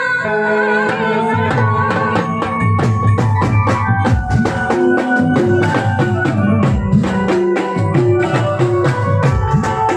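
Live amplified folk band playing an instrumental passage: a fast, even drum beat from dhol and stage drums under a stepping melodic line.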